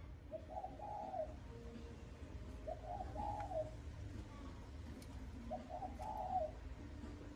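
Spotted dove cooing: three repeated coo phrases, about two and a half seconds apart.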